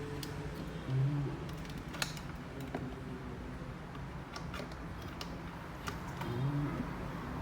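Scattered light clicks and taps of a small charger and cable being handled, with a brief low hum twice.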